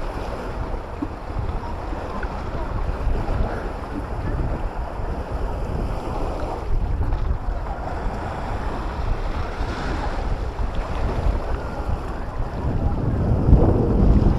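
Sea waves washing onto the shore, with wind buffeting the microphone as a heavy low rumble. The surge grows louder near the end.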